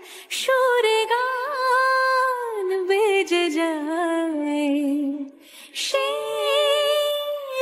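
A woman singing a slow melody alone, without accompaniment, holding long notes with a gentle wavering; she pauses for a breath about five seconds in and then goes on.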